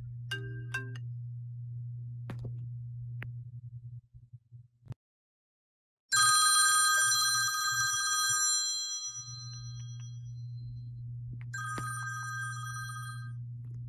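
Smartphone alarm tone ringing with a bell-like trill. A short melodic tone opens the stretch. The loud ring starts abruptly about six seconds in and fades out over two or three seconds, and a shorter ring near the end stops suddenly. A low steady hum sits underneath.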